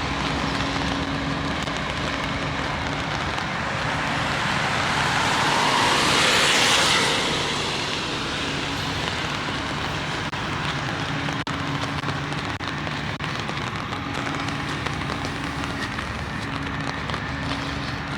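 Rain pattering on an umbrella, with a car passing on the wet road: its tyre hiss swells to a peak about six to seven seconds in, then fades.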